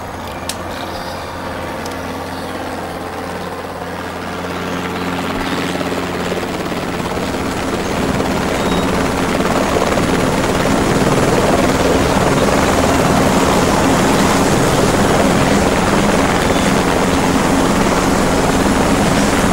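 Light helicopter's rotors and engine, growing louder over the first ten seconds or so as it approaches, then holding steady and loud.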